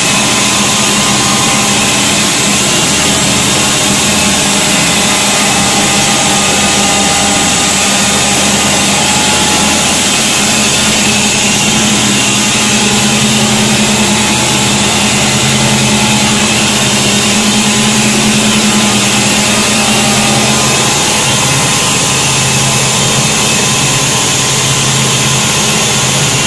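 Decanter centrifuge running at speed while separating blueberry juice from the pulp: a loud, steady machine hum with a high hiss, unchanging throughout.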